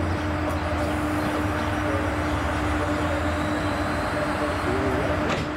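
DRS Class 68 diesel-electric locomotive with a Caterpillar V16 engine, running slowly as it approaches. It gives a steady engine drone with a constant hum over it.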